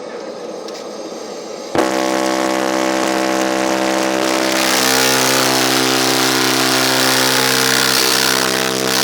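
Car sound system with a Tornado 15 subwoofer and a Taramps amplifier cutting in suddenly about two seconds in and playing very loud, a heavy droning bass note held steady under bright distorted highs.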